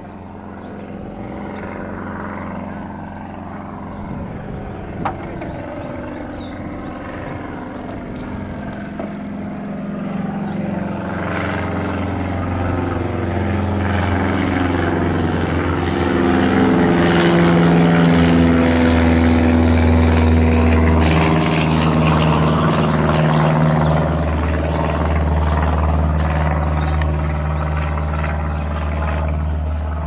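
PZL-110 Koliber 160A light aircraft climbing out at take-off power, its four-cylinder Lycoming O-320 engine and propeller growing louder as it approaches and passes overhead, the pitch dropping as it goes by, then easing off slightly near the end.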